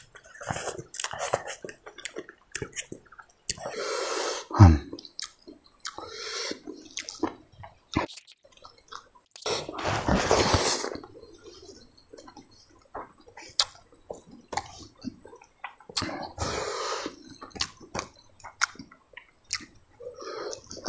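Close-up wet chewing and lip-smacking of a person eating rice and curry by hand, with many small clicks of the mouth and a few louder slurping sucks, the longest about ten seconds in.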